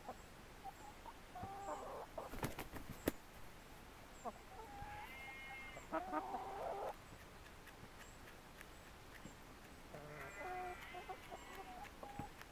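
Hens clucking in short calls, in bouts about a second and a half in, from about five to seven seconds in, and again around ten to eleven seconds in. A couple of sharp clicks sound between two and three seconds in.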